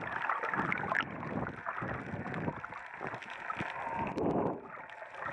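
Seawater sloshing and gurgling, muffled as heard from a camera in an underwater housing just below the surface, in irregular surges with a louder swell about four seconds in.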